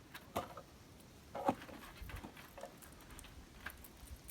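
A few light knocks and clicks, the loudest about a second and a half in, over a faint low rumble.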